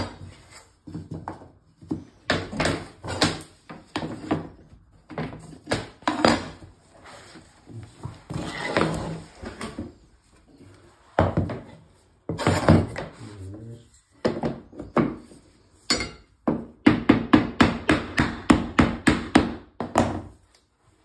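Claw hammer knocking laminate floorboards into place against a wooden tapping block: scattered knocks and thuds, then a quick run of blows, about five a second, near the end.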